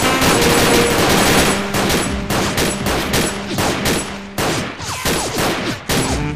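Rapid automatic gunfire sound effects: long strings of shots, several a second, thinning to separate shots over the last two seconds.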